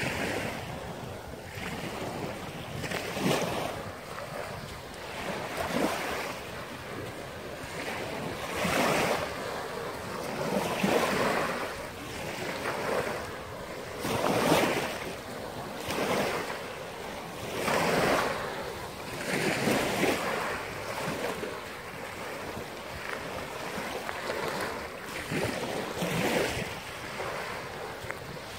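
Small waves breaking and washing up a pebbly shore, one soft rush every couple of seconds.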